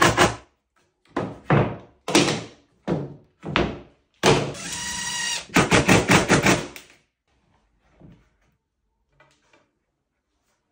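Cordless impact driver driving screws into melamine-faced board: several short bursts, then a longer run with a steady motor whine that breaks into rapid hammering, stopping about seven seconds in. A few light knocks follow as the boards are handled.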